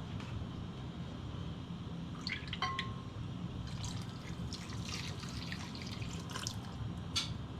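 Scattered light taps and clinks of kitchen utensils against bowls while ingredients are handled, with one brief ring about two and a half seconds in, over a steady low hum.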